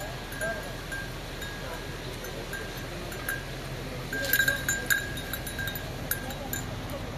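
Small metal bells clinking in short, irregular rings, bunching up and loudest about four to five seconds in, like bells on passing livestock, over a steady low background rumble.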